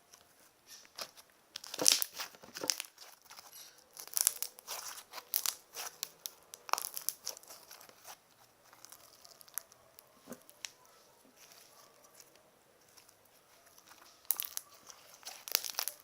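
Slime being stretched and squeezed by hand, giving off irregular sticky crackles and pops, in clusters with short lulls between.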